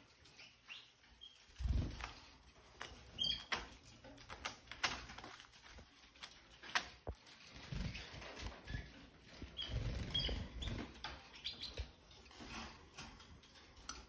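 Red factor canaries fluttering and hopping about a wire cage: irregular wing flaps and small taps, a few short chirps, and several low thumps.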